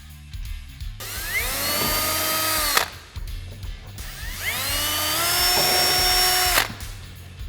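Power drill run twice to drill two holes. Each run spins up to a steady whine, holds for about two seconds, then stops suddenly. Background music plays underneath.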